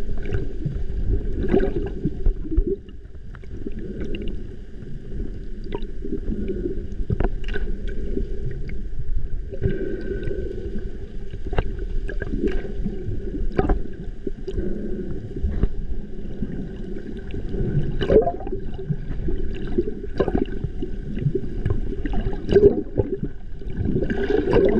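Muffled water noise recorded underwater: a steady low rush of moving water with scattered sharp clicks and ticks, a few louder knocks coming in the second half.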